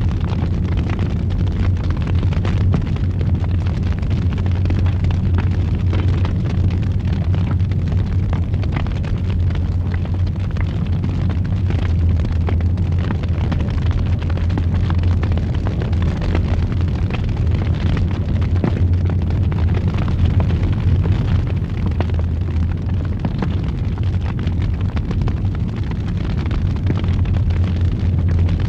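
Wood fire in a fireplace roaring, a steady low rumble with dense, irregular crackles and pops throughout.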